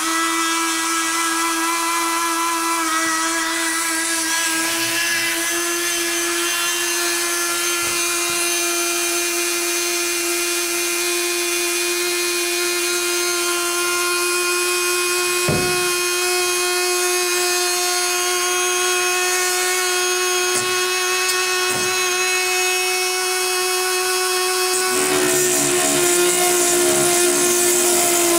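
Dremel rotary tool spinning a reinforced cutting wheel on a locking hub with a steady high-pitched whine. About 25 seconds in, the wheel bites into a rusted-on bed bolt and the sound grows louder and rougher as it grinds through the metal.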